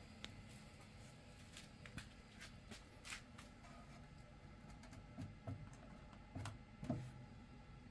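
Faint handling noises: scattered light clicks and taps, with a few soft low thumps near the end, over a low steady hum.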